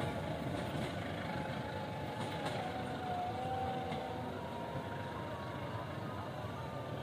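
Passenger train running away along the rails: a steady rumble of wheels on track that slowly fades as it recedes.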